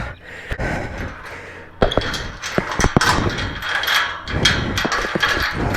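Metal chains clanking and rattling against a gate as they are handled and unwrapped: a run of sharp knocks and jingles starting about two seconds in.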